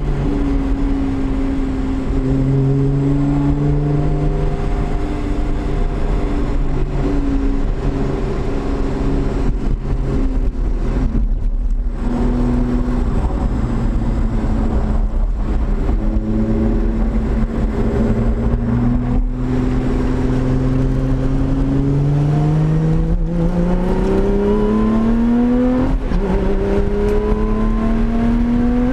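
The supercharged V6 engine of a 2020 Lotus Evora GT running on the move. Its pitch holds mostly steady with small rises and dips, then climbs steadily as the car accelerates about three-quarters of the way in, drops suddenly at a gear change and climbs again near the end.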